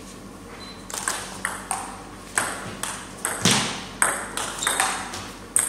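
Table tennis rally: the ball clicking sharply back and forth off the rackets and the table, about ten quick, irregular ticks starting about a second in, the loudest about halfway through.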